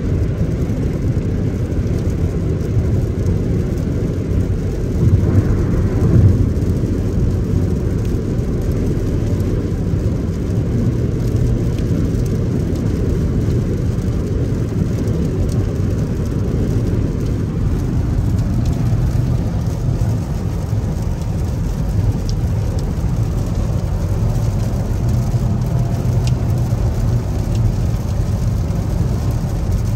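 Steady low road rumble heard from inside a car travelling at highway speed: tyre and engine noise, with a brief louder bump about five seconds in.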